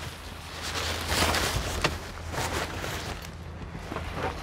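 Fabric of a pop-up tent rustling and swishing as it is unfolded and spread open, with a few sharp rustles, over a steady low hum.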